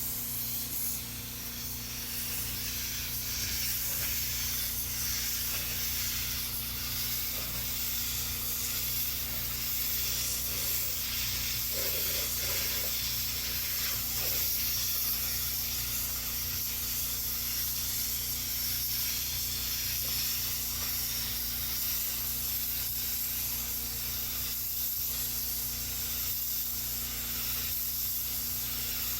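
Paint spray gun hissing steadily as it sprays a wet coat of automotive clear coat onto a bumper.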